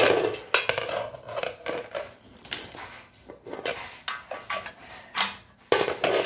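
Black metal frame bars of a hoverboard go-kart attachment clanking and knocking together as they are handled and turned over: a run of irregular metallic clanks and clicks, loudest at the start and again about five to six seconds in.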